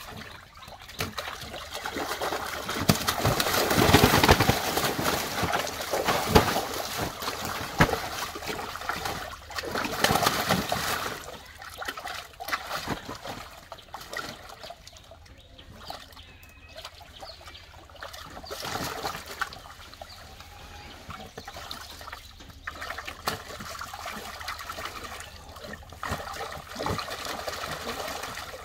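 Large freshly caught fish thrashing and splashing in shallow water in a tarp-lined boat hold, with water trickling and dripping off the cast net. The splashing comes in irregular bouts, loudest about four seconds in and again around ten seconds in.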